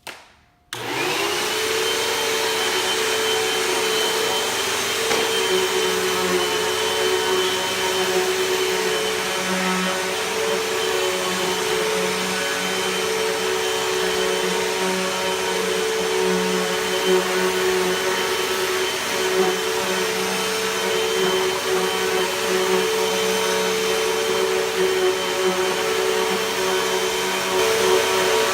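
Vacuum cleaner switched on just under a second in, its motor spinning up in a rising whine, then running steadily at full speed.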